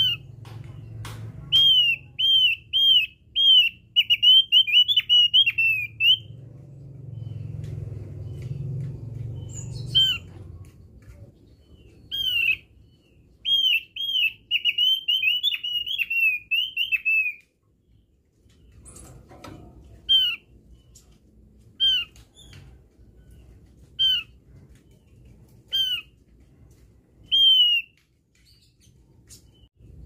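Javan grey-throated white-eye (opior jawa) singing: fast runs of short, arched whistled notes, two long runs, then in the second half single notes spaced a couple of seconds apart. A low rumble runs underneath.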